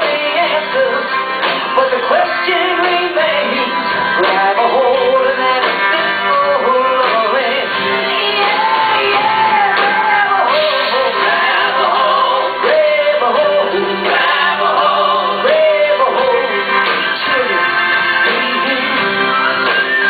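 Live rock band playing a song, with singing over the band.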